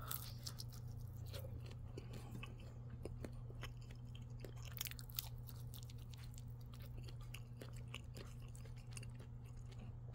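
Faint chewing of a pizza roll close to the microphone: many small, irregular mouth clicks over a steady low hum.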